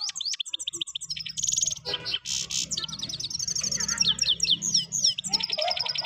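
European goldfinches singing against each other: a fast, unbroken run of twittering high chirps with buzzy trills mixed in.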